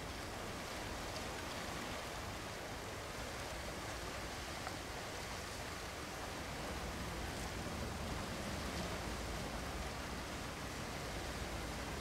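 Steady, even background hiss with no distinct events; no bird call stands out.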